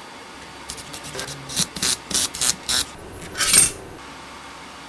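A graphics card fitted with a water block being handled and turned over on a work mat: a string of short scraping and clicking noises, with one louder, longer scrape at about three and a half seconds.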